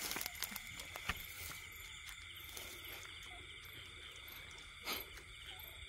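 Steady chorus of night insects trilling, with a few faint clicks in the first second and a short rustle about five seconds in.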